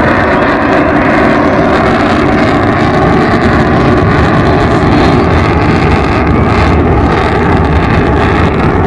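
Avro Vulcan XH558 jet bomber flying a display, its four Rolls-Royce Olympus turbojets giving a loud, steady roar with a faint tone inside it that slowly rises in pitch.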